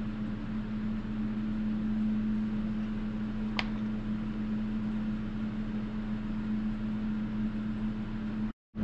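Electric fan running with a steady hum and a strong low drone. A single light click about three and a half seconds in. The sound cuts out briefly near the end.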